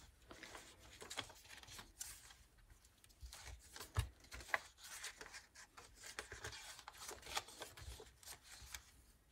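Pages of a handmade paper junk journal being turned and handled: soft, irregular paper rustles and light taps, with one sharper tap about four seconds in.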